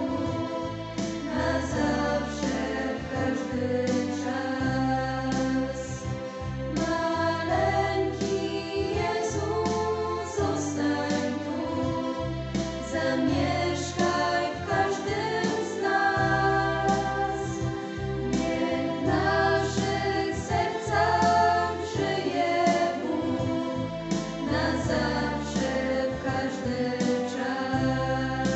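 Girls' choir singing a Polish Christmas carol in several voices, with a keyboard holding low bass notes beneath.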